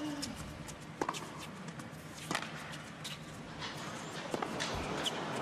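Tennis balls struck by rackets during a baseline rally on an indoor hard court: sharp pops, the clearest about a second in and a little over two seconds in, over a low arena hush.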